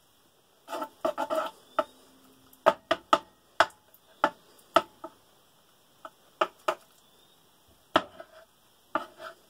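A long-handled spoon stirring peanut butter and strawberry jam in a divided food tray: a string of sharp, irregular clicks and taps as the spoon knocks against the tray compartment, some coming in quick clusters.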